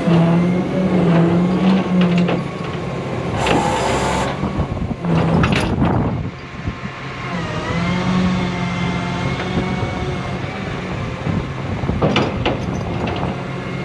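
Rollback tow truck's engine and hydraulic winch running as a car is pulled onto the bed. A low steady hum stops and starts several times, and a short burst of hiss comes about three and a half seconds in.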